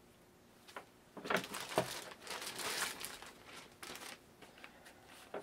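Packaging crinkling and rustling as it is handled, in irregular bursts with a few sharp crackles. The rustling starts about a second in and thins out near the end.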